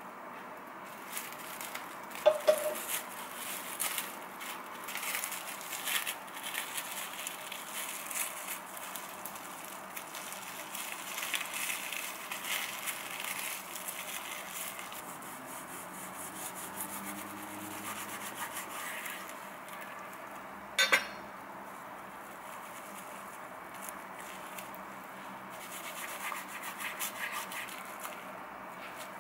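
Plastic cling film crinkling and rustling as it is wrapped and pressed by hand around a tortilla wrap. A short clack comes about two seconds in, and a sharp crackle about two-thirds of the way through.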